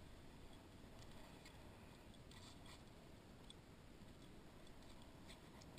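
Near silence: a faint low background hiss with a few faint, short clicks and ticks scattered through it.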